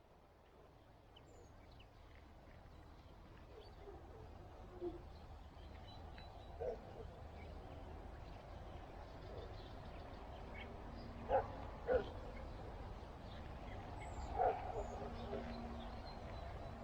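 Quiet outdoor ambience: a low steady rumble with a few short distant animal calls, two of them in quick succession near the middle, and faint high bird chirps.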